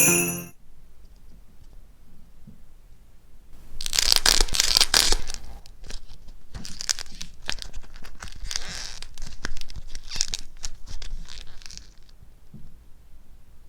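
Crisp crackling and crunching of dried cracking clay being broken and crushed by hand, in several bursts starting about four seconds in.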